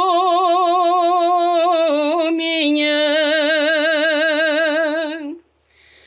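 A woman singing a Romanian religious song unaccompanied, holding one long note with vibrato on the last word of a line. The note steps down twice and ends about five seconds in, followed by a short breath.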